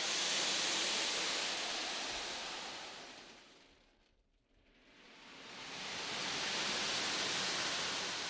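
Hand-worked wooden wave-effect machine, a long tray tilted by hand, making two long surges of hiss like surf washing on a shore. Each surge swells and dies away, with a moment of silence about four seconds in between them.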